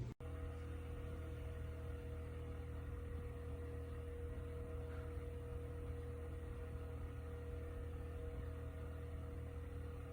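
Holmes 6-inch Heritage four-blade table fan running steadily: a low motor hum with a faint, steady whine above it.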